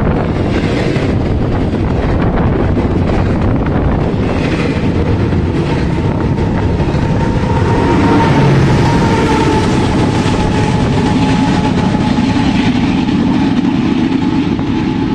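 A freight train passing close by: double-stack container well cars rolling over the rails with steady wheel and rail noise. About eight seconds in, a Canadian Pacific diesel locomotive at the rear of the train passes, adding its engine note and a steady whine.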